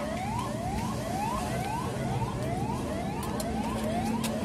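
Electronic siren in a fast yelp, its pitch rising and snapping back about three times a second, over a low steady drone.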